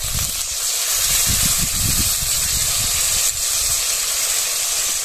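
Onion and tomato paste sizzling in hot oil in a kadai, a steady hiss, with irregular low rumbling underneath.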